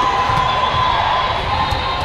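Crowd of spectators cheering and shouting, a steady mass of voices.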